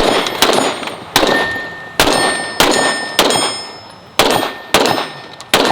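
A string of about nine handgun shots, roughly half a second to a second apart. Each is followed by a clanging ring, typical of bullets striking steel targets.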